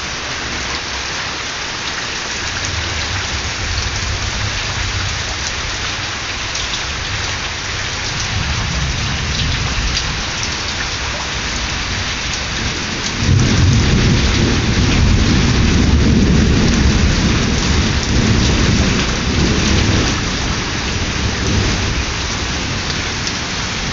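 Heavy rain pouring down steadily in a thunderstorm, with thunder rumbling low several times. The loudest peal of thunder breaks in suddenly about halfway through and rolls on for several seconds.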